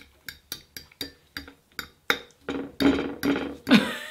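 A metal fork tapping rapidly on a plate, about four sharp ringing clinks a second, growing louder and denser in the second half.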